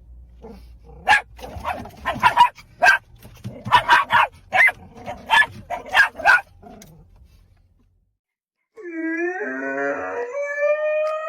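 Dog barking repeatedly in short, sharp barks at an uneven pace. After a short break, near the end, comes a long drawn-out howl-like call.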